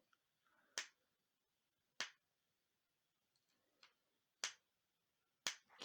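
Sharp small metal clicks, about five of them spread irregularly with quiet between: a T6 Torx driver bit slipping out of a stripped pocket-clip screw on a folding knife.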